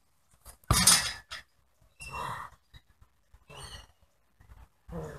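Short grunts and cries of pain, four of them about a second and a half apart; the first and loudest, about a second in, starts sharply.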